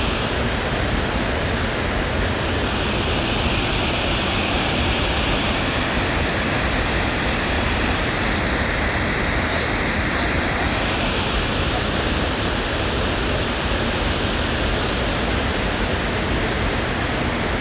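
River water pouring over a concrete weir: a loud, steady rush of falling water with no breaks.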